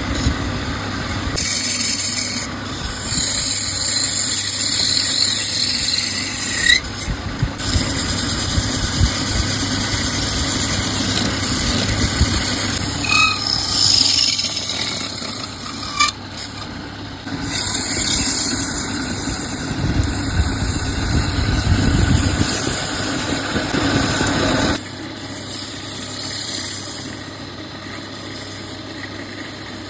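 Wood lathe running with a steady motor hum while a tool scrapes and rubs against the spinning wooden bowl, with occasional squeals. The sound changes abruptly several times.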